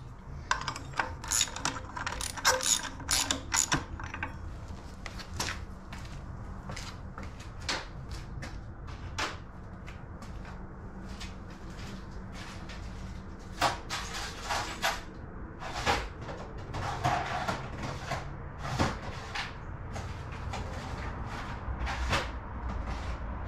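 Socket ratchet clicking in quick runs as the bolt on a mini bike's torque converter driver pulley is tightened, for about the first four seconds. After that come scattered clicks and metal knocks, a few at a time.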